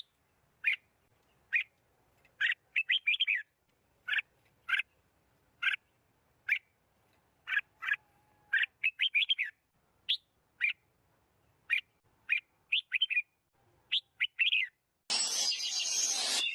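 A small bird chirping: single short chirps about a second apart, broken by quick runs of four or five notes. Near the end a loud hissing noise starts suddenly and covers the chirps.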